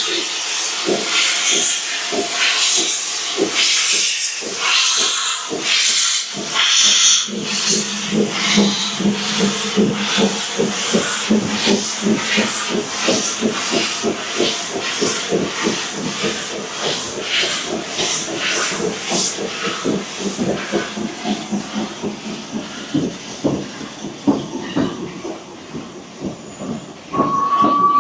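Steam locomotive working, its exhaust beats coming about twice a second at first and gradually quickening, over a steady hiss of steam. One short whistle blast sounds near the end.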